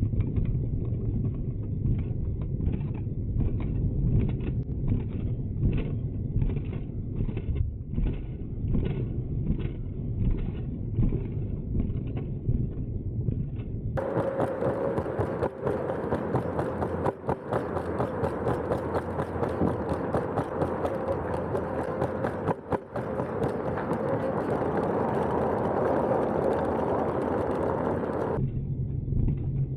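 Xiaomi M365 electric scooter ridden over a rough trail, with tyre rumble and rattling from the deck and front suspension. For the first half the sound is muffled, with a regular knock a little under twice a second. About halfway through it turns clearer, with a steady whine over the rumble, and it turns muffled again near the end.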